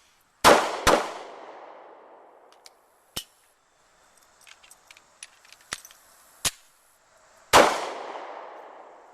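Pistol fired twice in quick succession, about half a second apart, then a few small clicks and knocks, then a single shot near the end: the two-to-the-body, one-to-the-head pattern of a failure drill. Each shot has a long echoing tail.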